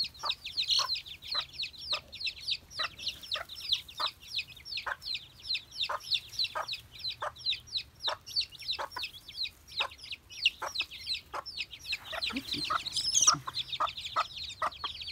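A brood of chicks peeping without a break, many high, falling peeps overlapping, while the mother hen clucks steadily, about one to two short clucks a second.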